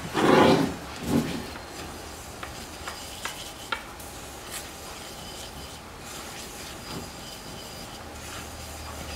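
A spatula stirring graham cracker crumbs moistened with olive oil in a mixing bowl: a soft, gritty rubbing and scraping with small scattered ticks. A louder scrape comes in the first second.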